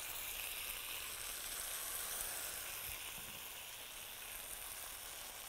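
Beef fillets and potatoes sizzling in flavoured butter in a frying pan: a steady sizzle.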